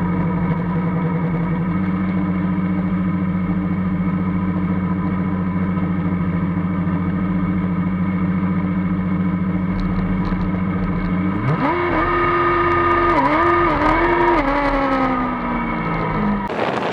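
Formula Student race car's engine heard from the cockpit, running at a steady speed at low pace. About two-thirds of the way in it revs up sharply, rises and dips a few times, then eases off. It cuts off abruptly near the end.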